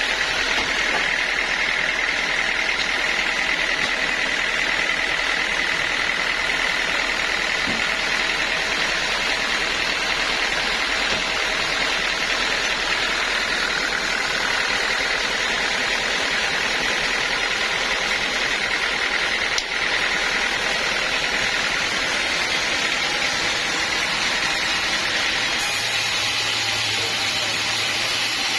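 Band sawmill running steadily, its engine and blade making a continuous dense noise. There is a short dip about two-thirds of the way through, and the sound shifts near the end as a low hum comes in.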